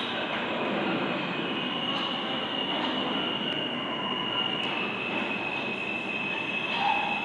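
R160A subway train approaching through the tunnel: a steady rumble with a high-pitched wheel squeal that comes in about a second in and steps down slightly in pitch about halfway through.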